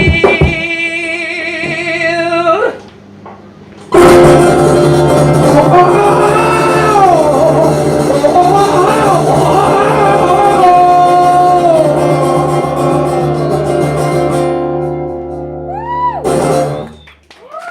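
Live band music: a long sung note with vibrato breaks off, and after a short pause the band hits a loud final chord and holds it while a voice wails a wavering line over it, then the sound fades out and stops near the end.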